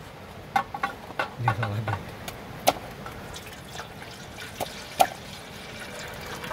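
Water poured from a plastic bottle into an aluminium cooking pot, splashing into the pot. Several sharp clicks and knocks from the pot and bottle being handled break in, the loudest about five seconds in.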